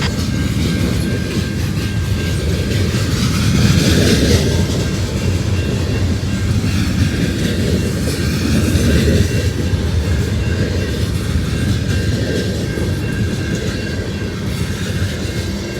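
Freight train cars rolling past, a steady loud rumble with wheels clattering over the rail joints and a faint steady high whine, swelling a little about four and nine seconds in.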